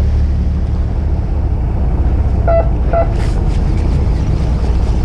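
Fishing boat's engine running with a steady low drone as the boat moves through the water. About halfway through, two short beeps sound half a second apart.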